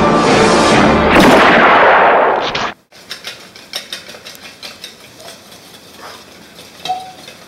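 Theme music swelling into a loud rushing burst that cuts off suddenly under three seconds in. Then a wire whisk clicks rapidly against a plastic mixing bowl, whisking pancake batter.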